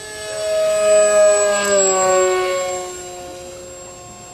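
Electric motor and propeller of an RC paper airplane whining as it flies past. It grows louder, drops in pitch about two seconds in, then fades.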